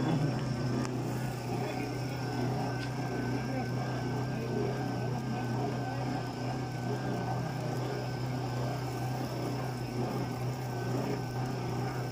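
Steady hum of a small running motor with a faint wavering whine above it.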